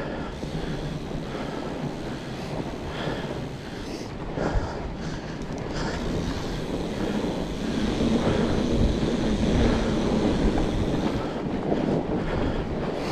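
Wind rushing over the microphone of a riding fat bike, with the bike's rolling noise and a few knocks; it grows louder about eight seconds in.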